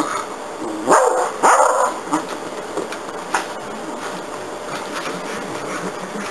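Beagle barking twice in quick succession, each a short rising bark about half a second apart, about a second in.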